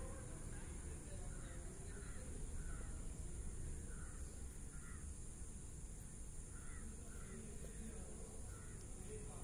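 Crows cawing: a run of short calls repeated over several seconds, with a gap in the middle, over a steady low background rumble.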